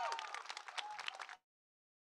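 Audience applauding, with cheers and whoops trailing off at the start. The sound cuts out abruptly about a second and a half in, leaving dead silence.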